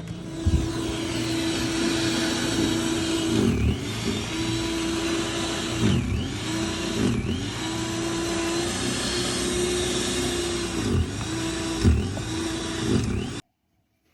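A motor running steadily, a constant hum over a loud rushing noise, its sound sweeping in and out several times as if the machine or its surroundings shift.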